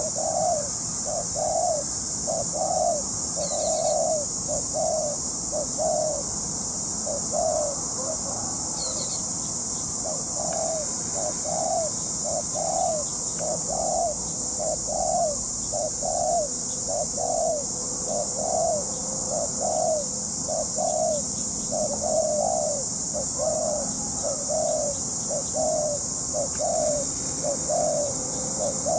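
Spotted dove cooing in a rapid, even run of low notes, about one and a half a second, with a short break about eight seconds in.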